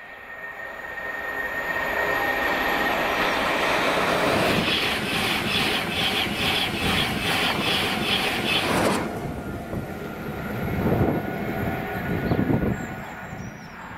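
Express passenger train passing close at speed: a rising rush of noise, then its wheels clattering over rail joints about three times a second. The sound cuts off suddenly about nine seconds in, leaving a quieter rumble with a couple of low thumps.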